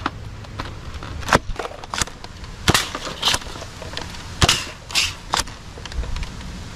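Nerf Mega Tri-Break foam-dart blaster being primed and fired: a string of sharp plastic clacks and pops, about eight loud ones spaced half a second to a second apart, over a low outdoor rumble.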